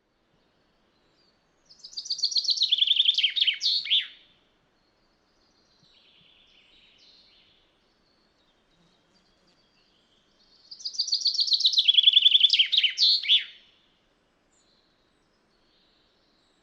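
Common chaffinch singing its song twice, about eight seconds apart: each song is a rapid run of notes falling in pitch, ending in a short flourish. A fainter, softer bird sound comes between the two songs.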